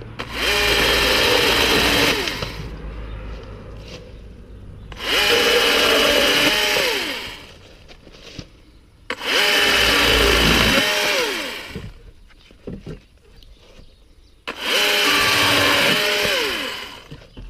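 Husqvarna 120i battery chainsaw run in four short bursts of about two seconds, the motor whining up to speed at each trigger pull and winding down as it is released.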